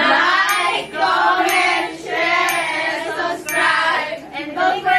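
A group of young women singing together in unison, several voices at once.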